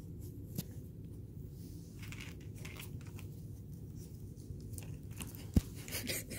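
A Cavalier King Charles Spaniel puppy mouthing and chewing, with small scattered clicks and rustles and one sharp click about five and a half seconds in.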